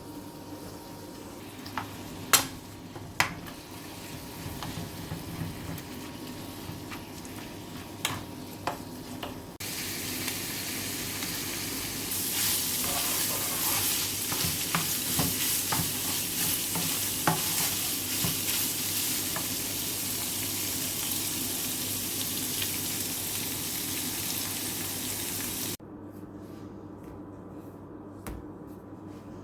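Food sizzling as it fries in a pan, with the clicks and scrapes of stirring. The sizzle starts suddenly about ten seconds in and cuts off a few seconds before the end. Before it there are a few sharp knocks of kitchenware.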